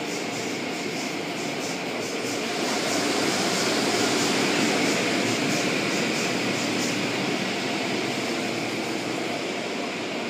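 Automatic car wash's spinning cloth brushes and water spray working over the car, heard from inside the cabin. It is a steady rushing wash with a faint regular swish, about two a second, that fades out about two-thirds of the way through.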